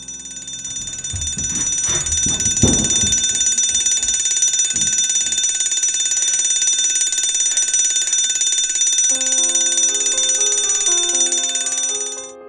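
An electric bell ringing loudly and without a break, cutting off shortly before the end, with a few dull thumps near the start. Piano music comes in about three-quarters of the way through.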